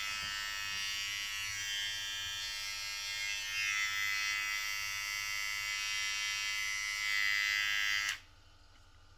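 Ufree U1257 cordless T-blade hair trimmer running at a steady pitch, switched off suddenly about eight seconds in.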